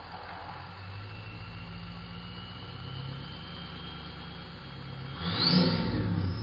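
Ford 6.0 Powerstroke V8 turbo-diesel engine revving, its turbocharger whistle a thin high tone that rises slowly with the revs. About five seconds in the engine is blipped hard: the whistle climbs sharply in pitch as the engine surges to its loudest.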